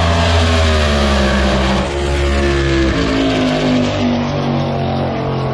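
Drag-racing car engine running loudly, its pitch falling in steps over the second half.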